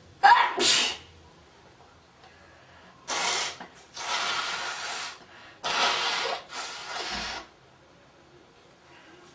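A man sneezes loudly once right at the start, then blows his nose hard four or five times in short rasping blasts over the next few seconds.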